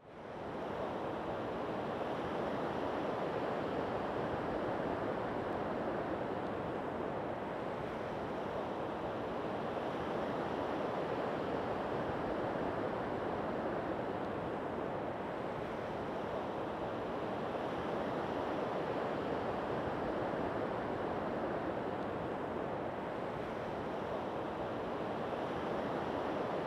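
Ocean surf breaking and washing up a beach: a steady rushing wash that fades in at the start.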